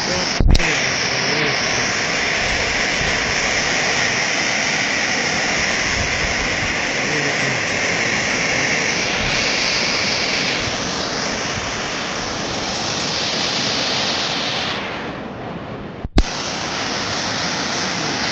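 Floodwater of a wadi in spate rushing steadily as one continuous wash of noise. A sharp click comes about half a second in and another about two seconds before the end.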